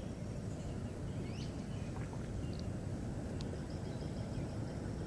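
Steady low outdoor rumble, with a few faint, short bird chirps and twitters above it.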